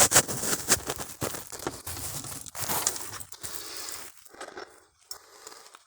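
Close rustling and scraping of a person moving through a tight cave passage while handling the phone: irregular scuffs and knocks that die away about four seconds in.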